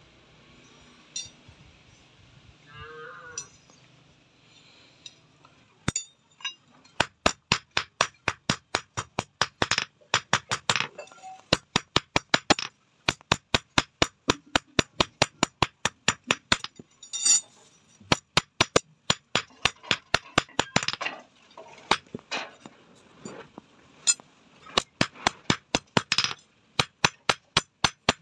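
Hand hammer striking a thin steel rod on an anvil: fast, regular sharp metallic clinks, about three or four blows a second, with a few brief pauses. The hammering starts about six seconds in, after a quiet stretch with a few faint knocks.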